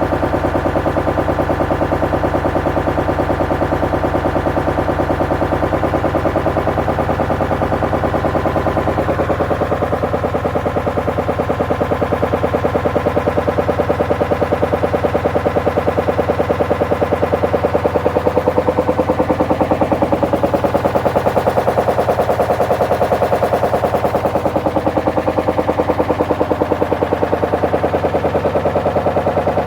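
Hoover washing machine spinning with pieces of wood in its drum: rapid, even rattling many times a second over a steady motor hum.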